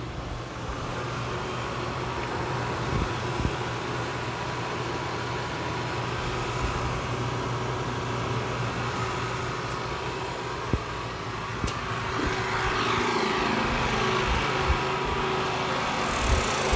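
Predator 9500 inverter generator's 459cc engine running steadily under load, then climbing in speed from about 13 seconds in, growing louder, as more load comes onto it from the electric water heater being switched on.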